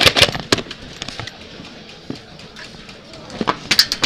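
Airsoft gunfire: a quick string of sharp cracks at the start, a few scattered single shots, then another burst near the end.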